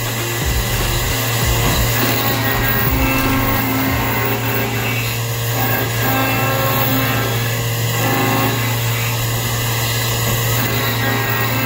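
Horizontal milling machine roughing a brass connecting rod with a 2-inch high-feed cutter: a steady machining noise over a constant low hum.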